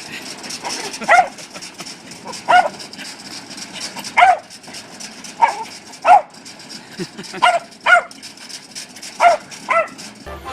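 Dog barking in short single barks, about nine of them, a second or more apart at first and then in two quick pairs near the end.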